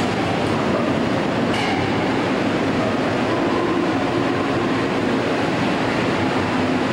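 Subway car rolling slowly into an underground station, a steady rumble of steel wheels on the rails, with a brief high screech about one and a half seconds in.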